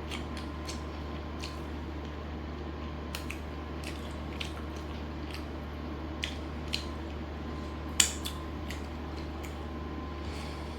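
A person eating chicken biryani: wet chewing and scattered mouth clicks, with one sharper, louder click about eight seconds in, over a steady low hum.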